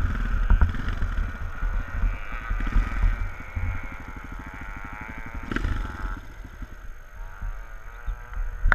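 Twin-shock motocross bike's engine ticking over at idle while stopped, with wind rumbling on the helmet-mounted microphone. The engine note fades about six seconds in.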